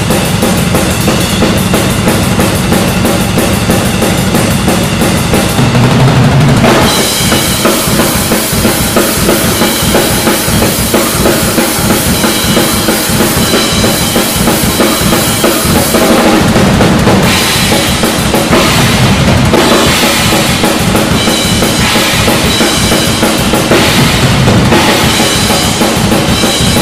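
Heavy-metal drum kit played hard and fast: double bass drums under snare hits and crashing Paiste RUDE cymbals. The pattern changes about six and a half seconds in.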